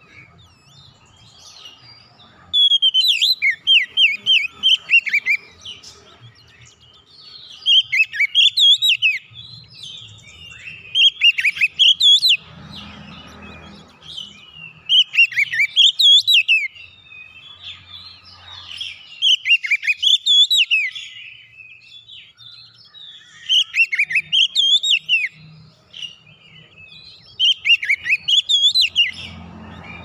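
Oriental magpie-robin (kacer) singing in repeated bursts of rapid, varied whistled notes. Each phrase lasts two to four seconds, with short pauses between.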